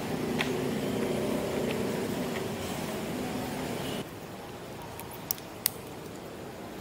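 Steady road-traffic and engine hum, with some low steady tones in it. About four seconds in, it cuts abruptly to a quieter hum, and two sharp clicks follow a second or so later.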